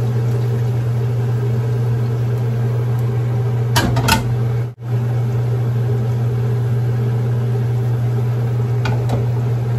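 Steady hum of a kitchen fan motor, with a brief clatter of a utensil about four seconds in.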